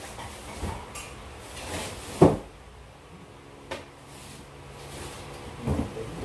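A few scattered knocks and thumps of things being handled, the loudest a sharp knock about two seconds in, over a faint steady hum.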